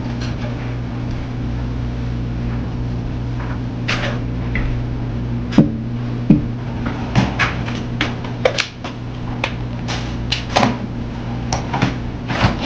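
Scattered knocks and clatters of a dining chair being moved and objects being set down on a glass tabletop, over a steady low hum.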